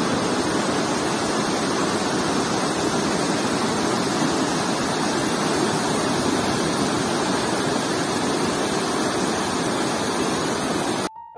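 Fast mountain river rushing over rocks in whitewater rapids: a steady, loud rush of water. It cuts off suddenly near the end, where piano music comes in.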